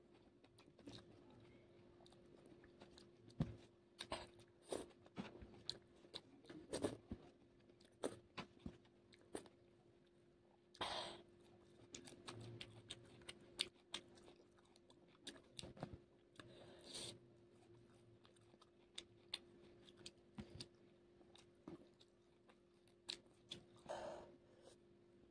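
Close-miked mouth sounds of a person eating: irregular chewing with crisp crunches, clicks and smacks, and three longer, louder mouth noises spread through. A faint steady low hum runs underneath.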